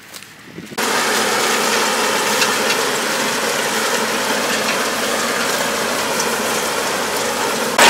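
Tractor engine and round baler running together, a steady mechanical noise heard from close behind the baler, starting suddenly about a second in.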